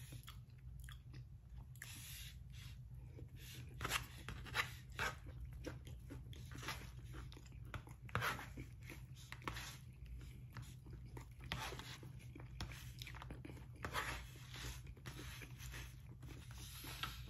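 Close-up chewing and mouth sounds of a man eating brisket stir-fry, with clicks and light scrapes of a plastic fork on a paper plate, over a steady low hum. A few sharper clicks stand out around four, eight and fourteen seconds in.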